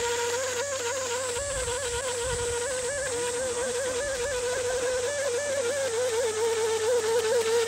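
Radio-controlled speedboat's motor running at speed, a high whine that wavers in pitch as the throttle and the boat's load change, growing louder near the end as the boat comes closer.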